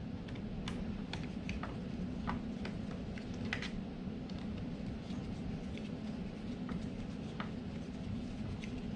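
Small hand driver turning screws into an RC car chassis: scattered faint clicks and ticks of the tool and screws, over a steady low hum.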